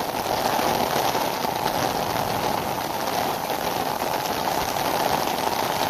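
Heavy downpour of rain falling steadily.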